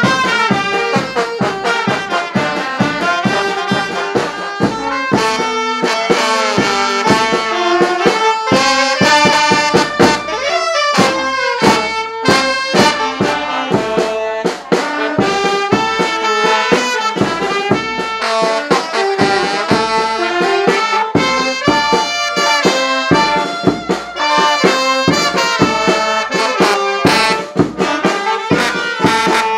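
Brass band music: trumpets and trombones playing a melody over a steady drum beat.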